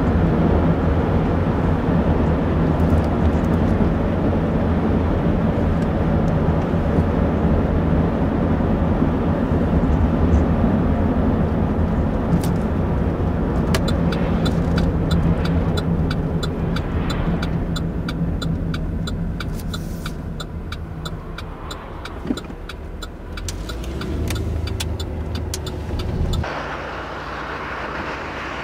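Steady road and engine noise inside a moving car's cabin, easing off as the car slows. About halfway through an even turn-signal clicking starts. Near the end the sound cuts abruptly to a steady outdoor hiss.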